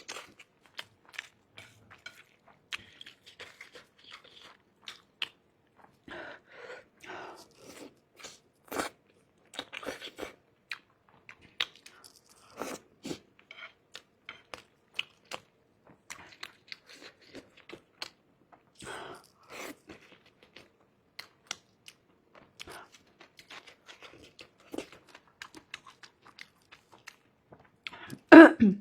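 Close-up eating sounds: a person chewing and biting mouthfuls of extra-spicy stir-fried rice noodles with naan mixed in, with irregular crunchy bites and mouth clicks. A brief louder sound comes near the end.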